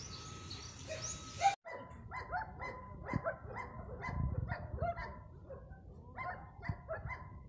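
German Shepherd barking repeatedly in quick runs of two or three, about two barks a second, while being worked up for bite training. The sound cuts off briefly about one and a half seconds in.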